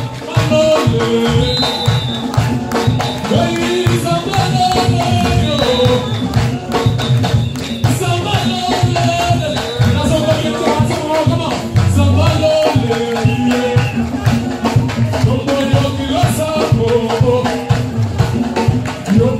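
Live church praise-and-worship music: a group of singers at microphones over a band with keyboard and drums keeping a steady beat.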